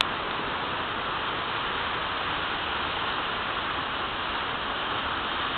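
Steady rushing noise of heavy surf breaking, driven by a hurricane's swell, with no single crash standing out.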